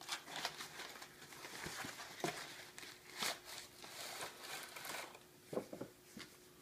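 A cardboard game box being opened and handled: rustling and crinkling of the cardboard flap and paper, with a few short, sharper handling noises.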